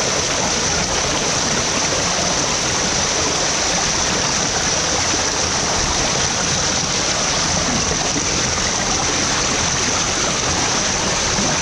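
Waterfall pouring: a loud, steady, unbroken rush of falling water.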